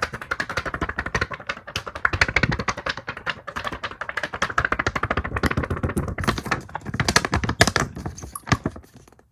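Rapid, continuous clicking and tapping of computer keyboard typing, easing off near the end.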